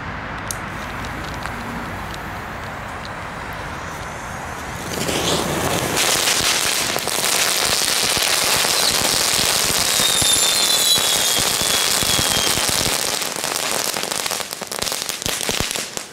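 A pile of Category 1 ground fireworks and fountains going off on pavement: about five seconds in it bursts into a loud, dense hissing and crackling spray. A thin whistle falls slowly in pitch partway through. The spray thins into scattered crackles near the end.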